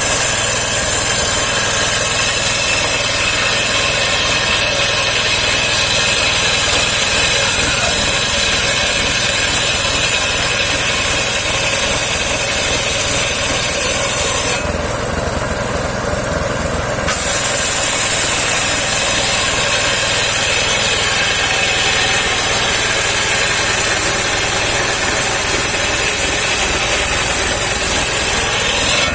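Engine-driven homemade circular sawmill running and sawing saman (rain tree) wood, with a steady high-pitched sound from the blade in the cut over the engine's drone. Near the middle the high sound drops away for about two seconds while the engine keeps running, then comes back.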